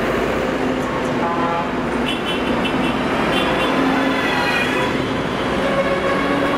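Large modern farm tractors' diesel engines running as they drive past close by one after another, with tyre noise on the road. Short horn toots sound a little after two seconds in and again about three and a half seconds in.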